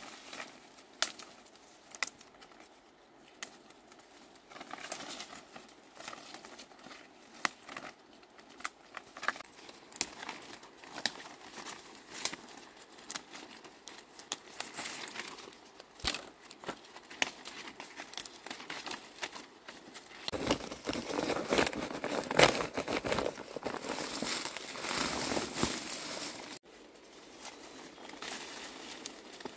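Leaves and bamboo stems rustling and crackling as leaves are picked by hand, with many sharp snaps. About two-thirds of the way through comes a louder stretch of dense rustling that cuts off suddenly.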